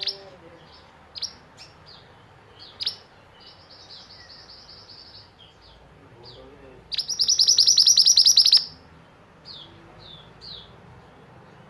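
Small songbirds chirping in short high notes. About seven seconds in, one bird gives a loud, rapid-fire trill lasting under two seconds: the 'tembakan' burst used in bird-song training recordings for white-eyes.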